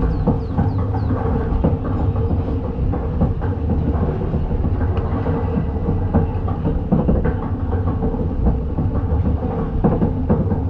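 Roller coaster train being hauled up the lift hill: a steady low rumble and clanking from the chain lift, with many quick, irregular clicks from the anti-rollback ratchet under the cars.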